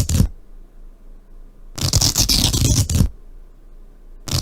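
Recorded stethoscope lung sound of coarse crackles: a burst of scratchy crackling with each breath, one ending just after the start, one in the middle and one beginning near the end. Crackles are the sign of fluid in the alveoli and small airways, closed airways popping open as air moves in and out.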